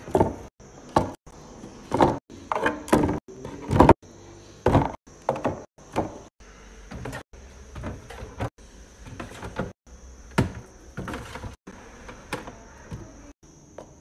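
Fruit and food containers knocking and clattering as they are set into clear plastic fridge bins: a string of irregular sharp knocks, the loudest in the first four seconds.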